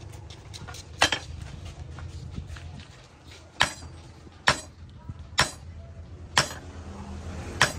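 Sharp ringing metal-on-metal strikes, about six, roughly a second apart, as red-hot steel is worked. A steady low hum of the forge's electric blower runs beneath.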